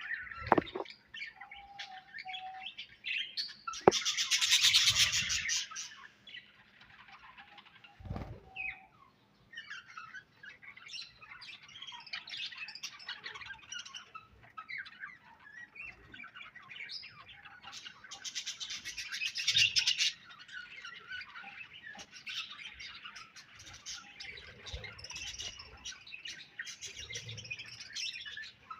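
A flock of budgerigars chirping and chattering without a break, with two louder bursts of dense chatter, one about four seconds in and one about two-thirds of the way through.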